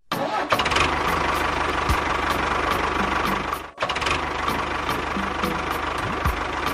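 A heavy vehicle's engine running steadily with a rapid knocking rumble, dropping out for an instant near the middle and carrying straight on.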